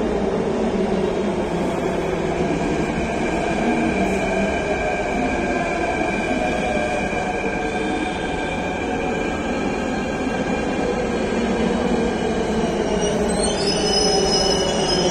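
Delhi Metro train running into the station: a steady rumble of wheels on rail with a whine above it. Near the end a high, several-toned squeal of wheels or brakes sets in as the train slows.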